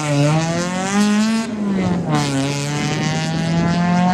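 Peugeot 206 rally car's engine accelerating hard out of a corner. Its pitch climbs, breaks and drops for a gear change about one and a half seconds in, then climbs again.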